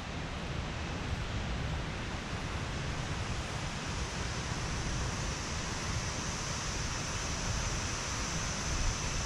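Steady outdoor background noise: an even hiss with a thin, steady high tone that grows a little stronger about halfway through, and no distinct sounds.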